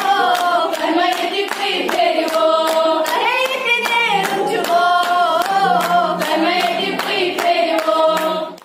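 Girls singing a song unaccompanied, with hand claps keeping a steady beat of about three a second. The sound breaks off abruptly at the very end.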